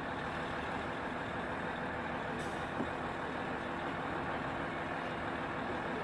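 Mercedes-Benz concrete mixer truck running steadily: an even engine and machinery noise.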